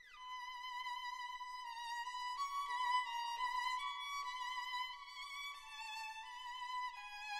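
Background music: a slow melody of long held notes with a slight vibrato, stepping from note to note.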